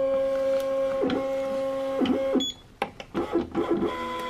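Jiose 4x6 thermal label printer feeding fanfold labels through, its motor giving a steady whine. About two and a half seconds in, the feed pauses briefly with a few clicks, then starts again more quietly.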